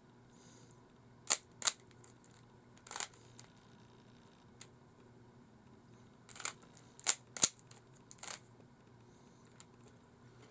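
Rubik's cube being handled and turned: about seven sharp plastic clicks, a few in the first three seconds and a quicker cluster of four later on.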